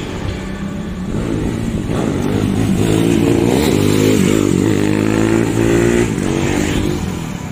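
Single-cylinder four-stroke Honda CB with a GL-series engine built to a 70 mm stroke and a 65.5 mm Tiger piston, running on a stock carburettor. It is ridden past, its engine revving up and easing off several times, loudest in the middle and fading near the end.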